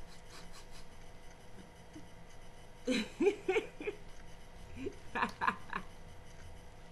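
Laughter in two short bouts, about three seconds in and again about five seconds in.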